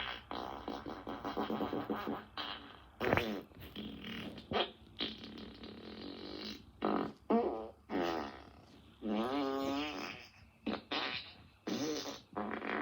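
A rapid string of fart sounds, about a dozen in a row. Short blasts alternate with longer buzzy ones, and one in the second half warbles up and down in pitch.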